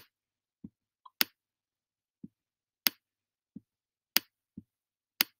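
Sharp clicks about one to one and a half seconds apart, five in all, with a softer, duller tap falling between each pair, made by the pen input while numbers are written on a digital whiteboard.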